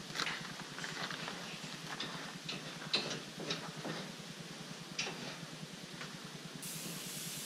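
Scattered light clicks and knocks of hands working at the top of a caged plastic IBC tote, coming at uneven intervals, with a faint steady hiss that grows stronger near the end.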